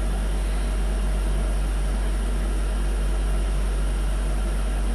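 Steady deep hum with an even hiss over it, with no distinct events.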